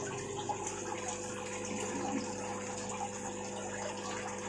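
Aquarium equipment running steadily: water bubbling and trickling from the tank filtration and aeration over a steady electric hum.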